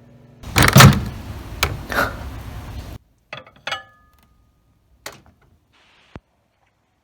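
Kitchenware being handled: a loud clattering for about two and a half seconds that cuts off abruptly, then a few sharp clicks, one ringing briefly like a dish clink.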